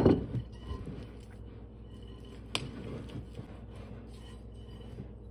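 A glass mixing bowl knocks sharply onto a countertop, then a metal spoon stirs ground beef into a thick cream-of-rice mash with soft scraping and squishing, with another light clink about two and a half seconds in.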